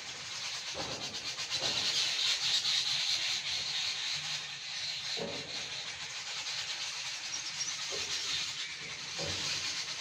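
A flock of small birds chirping together in a dense, continuous high chatter that swells about two to three seconds in, with a few faint soft knocks underneath.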